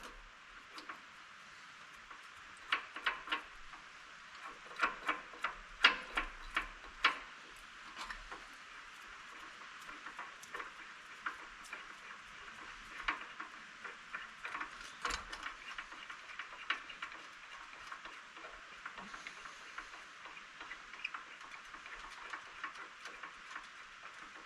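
Irregular sharp clicks and knocks of hand tools and metal parts being handled while the lathe's motor mount and belt are adjusted, over a steady hiss. The loudest knocks come in a cluster about three to seven seconds in, then sparser, lighter ticks.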